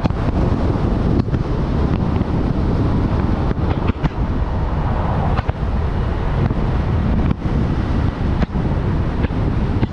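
Wind buffeting the microphone over the steady road and engine noise of a Jeep Rubicon on the move.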